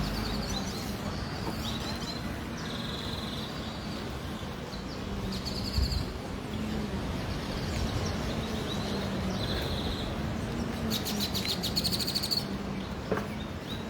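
Birds chirping and calling, with a fast trill about eleven seconds in, over a steady outdoor background hiss. A brief knock about six seconds in.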